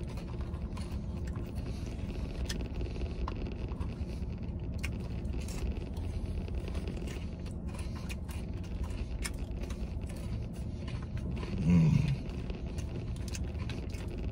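Chewing and the crinkle of a paper burger wrapper being handled, small scattered clicks and rustles over a steady low hum inside a truck cab. About twelve seconds in, a short, louder, low throaty sound comes from the eater.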